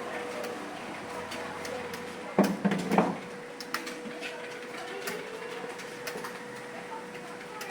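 Computer keyboard keys clicking in an irregular stream as someone types fast during a typing test, over a steady electrical hum. Two louder thuds stand out about two and a half and three seconds in.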